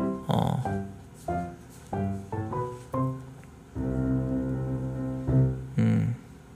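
Background piano music: a run of separate notes, then a held chord with a deep bass about four seconds in.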